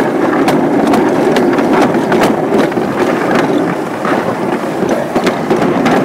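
Summer luge sled running fast down its trough track: a loud, steady rumble with frequent irregular clicks and knocks as it rides over the track.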